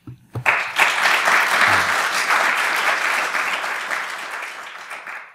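Audience applauding, starting about half a second in and slowly dying down before cutting off.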